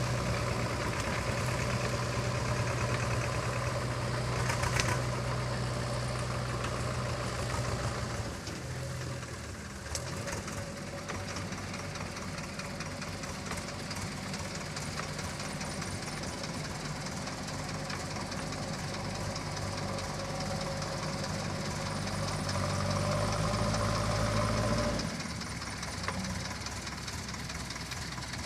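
JCB 3DX backhoe loader's diesel engine running as the machine works, its note dropping about eight seconds in, building back up, then dropping again near the end.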